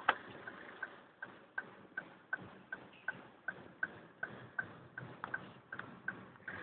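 A Ford Focus TDCi diesel making a weird, regular sharp ticking, about three ticks a second, each with a short metallic ping, over a steady low running noise. A few louder knocks stand out among the ticks.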